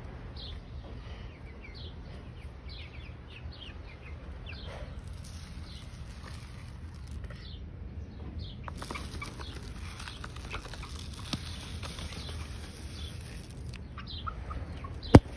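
Baby chicks peeping over and over, each peep a short falling chirp, over a steady low rumble. A single sharp click comes near the end.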